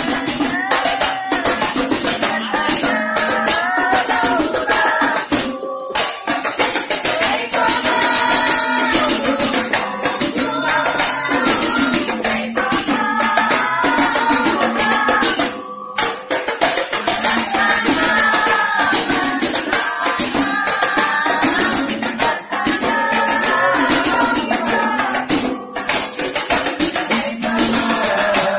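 Sholawat devotional song sung in Arabic, melodic voices over a steady jingling tambourine rhythm, with short breaks between phrases.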